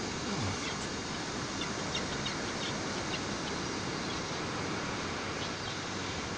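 Steady, even rushing noise with a few faint short chirps, like distant bird calls, between about one and a half and three seconds in.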